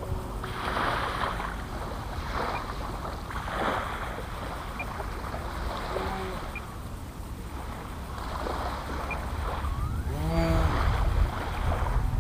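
Wind buffeting the microphone while a radio-controlled model airplane flies overhead. Near the end its motor is heard passing, the pitch rising and then falling.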